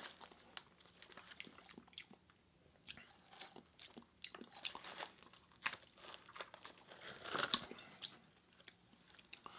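Close-up mouth sounds of a person sipping and swallowing a juice drink: faint scattered wet clicks and gulps, with a louder cluster about seven and a half seconds in.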